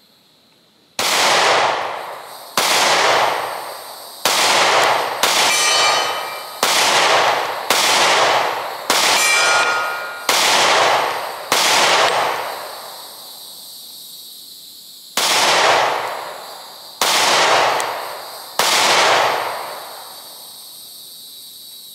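Canik METE MC9 9mm micro pistol fired twelve times in single shots about one to two seconds apart, with a pause of about three and a half seconds before the last three. Each shot trails off in a long echo, and two carry a brief metallic ringing.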